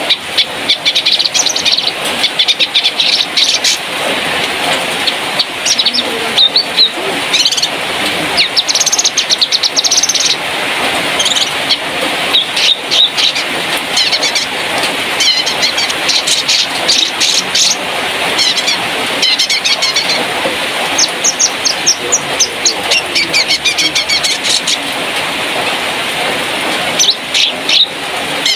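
Cucak kinoi, a Sumatran bulbul, calling in quick runs of short chirps again and again over a steady rushing background noise.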